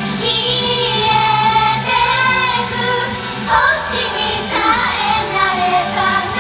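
Young women of an idol group singing a J-pop song live over a pop backing track with a steady bass line, the sung melody held and wavering with vibrato.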